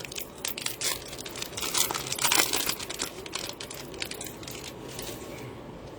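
Trading-card pack wrapper being torn open and crinkled by hand, with a dense run of sharp crackles and clicks over the first three seconds that thins to occasional faint rustles.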